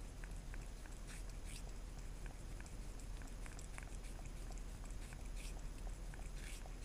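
A cat licking jelly from a small plastic cup: rapid faint wet tongue clicks, with a few louder slurps, about a second in and again near the end.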